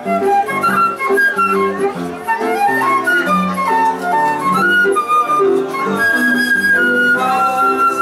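Live flute and violin ensemble playing a tune: the flute carries the high melody in held and stepping notes over sustained violin notes beneath.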